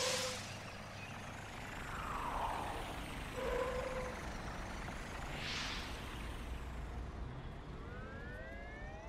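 Cartoon truck driving sound effects: a low steady engine hum with a falling whoosh about every three seconds as the truck passes, then a set of rising tones near the end.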